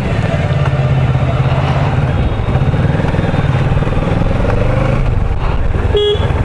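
Motorcycle riding at road speed: steady engine and road rumble with rushing air noise, and a short beep near the end.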